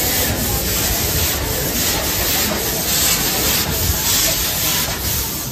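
Narrow-gauge steam locomotive No. 44 hissing as it pulls slowly into the station, its steam coming in pulses about twice a second.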